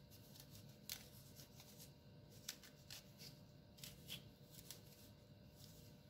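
Small knife cutting and scraping the seeds and core out of a halved quince on a wooden cutting board: faint, irregular scrapes with a few small clicks.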